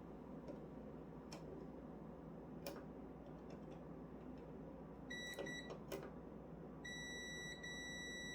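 Multimeter continuity beeper testing an old contactor's contacts: a few sharp clicks of the probes, then broken, stuttering beeps about five seconds in and a long steady beep near the end. The on-off beeping goes with a reading that jumps all over the place, which the tester takes as a sign the contactor is bad.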